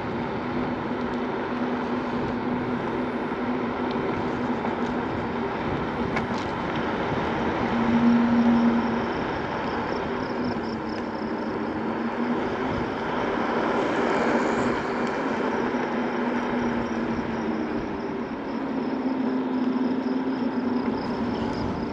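Segway Ninebot Max G2 electric scooter ridden over a coarse paved path: a steady low hum over tyre rumble, briefly louder about eight seconds in.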